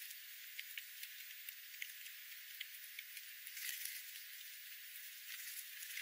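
Jays pecking at birdseed on gravel: scattered sharp ticks over a steady hiss, with a short louder rustling flurry about four seconds in.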